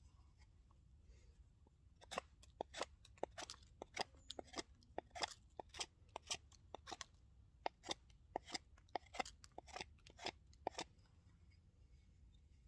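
A knife blade shaving the edge of a wooden cutting board: a series of short, crisp cutting strokes, about three a second, starting about two seconds in and stopping near the end.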